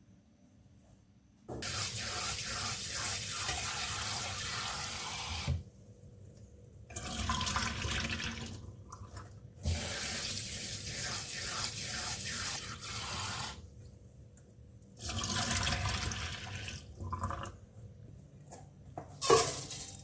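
Water running from a tap into a sink in several spells of a few seconds each, shut off in between, with a sharp clatter near the end.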